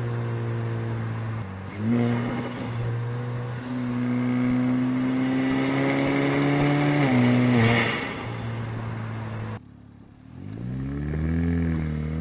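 Kia Forte GT's 1.6-litre turbocharged four-cylinder engine running under load. Its pitch climbs slowly through a long pull and drops sharply about seven seconds in as the revs fall, with a brief rushing hiss just after. Near the end the sound cuts out for a moment, then the engine revs up and falls back.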